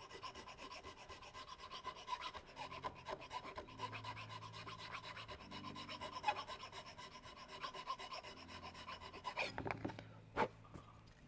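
Small file (an Iwasaki float) rasping wood in the blade channel of a Japanese plane's wooden block, in quick continuous strokes, shaving off the pencil-marked high spots where the tight blade fouls. Near the end the filing stops and the block knocks twice as it is handled.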